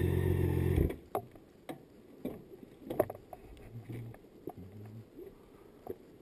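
BMW K1600GT's inline-six engine running steadily, then cutting off abruptly about a second in as it is switched off. After that come scattered clicks and knocks.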